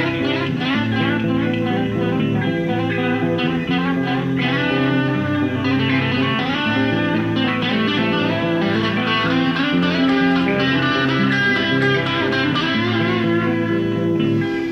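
Electric guitar played without pause: a stream of quick plucked notes over held low notes.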